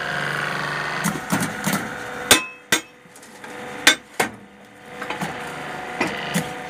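Hydraulic brick-making press working: a run of sharp metal clanks from its mould and press parts over the steady hum of its electric motor and pump. The loudest clank comes a little over two seconds in, and the hum drops away for a couple of seconds in the middle.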